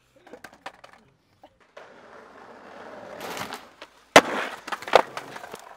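Skateboard wheels rolling on asphalt, growing louder, then a sharp clack as the board lands on a metal handrail just after four seconds in, a grind along the rail, and a second hard smack as the board lands back down about a second later.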